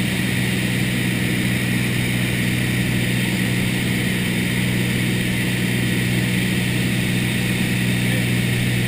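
Small light aircraft's piston engine and propeller heard inside the cabin in cruise: a steady, unchanging drone with an even hiss over it.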